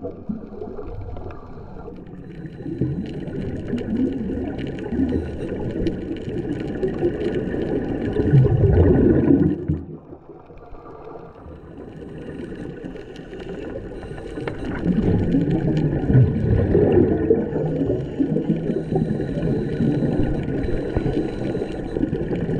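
Scuba diver's breathing heard underwater: exhaled bubbles from the regulator gurgle and rumble in long swells. The loudest burst comes a little before halfway, the sound drops off sharply for a few seconds, then it builds again.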